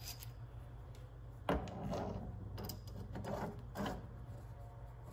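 Short knocks and scrapes of metal tool-post parts being handled and fitted together by hand, the sharpest knock about one and a half seconds in, over a steady low hum.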